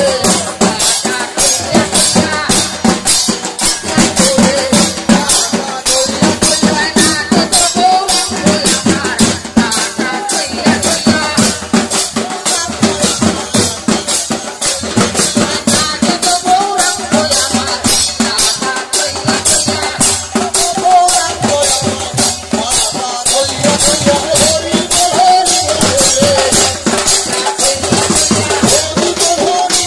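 Bengali kirtan music: khol drums and hand cymbals beating a steady quick rhythm of about three strikes a second, with voices singing.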